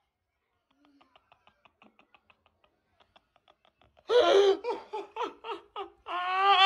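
A woman laughing hard. At first there are only faint, breathless pulses at about four a second; about four seconds in come loud, pulsing laughs, ending in a drawn-out cry.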